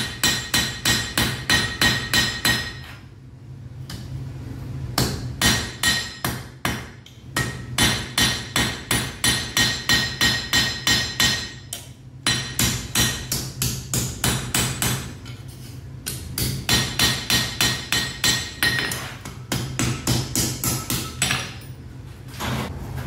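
Blacksmith's hammer striking iron on an anvil in quick runs of about three blows a second, broken by short pauses, the anvil ringing with a clear tone after each blow. A steady low hum runs underneath.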